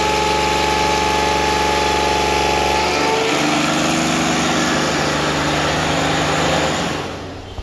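Repaired Komatsu PC200 hydraulic main pump running on test with its drive, a steady mechanical whine of several tones. About three seconds in the tone shifts lower, and near the end the sound falls away.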